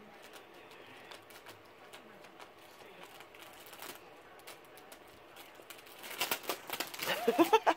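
Plastic cookie wrapper crinkling and crackling as a cat noses and pushes its head into the packet. The crackling is faint at first and grows louder and busier near the end, where a brief voice-like sound joins it.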